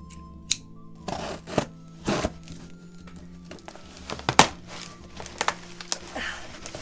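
Cardboard shipping box being handled: scattered knocks, rustles and crinkles, the sharpest knock a little past the middle.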